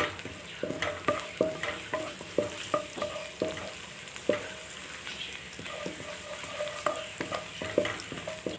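Chopped garlic sizzling in ghee in a non-stick wok, being fried to light brown, while a wooden spatula stirs it and knocks against the pan about once or twice a second.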